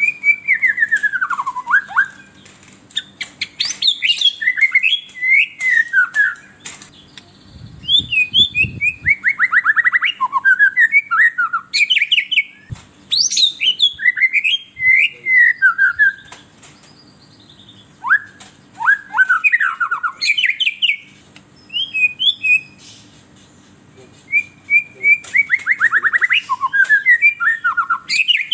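White-rumped shama (murai batu) singing in an excited, agitated way. It sings several bouts of fast, rattling descending trills and sharp whistled notes, with pauses of a second or two between them.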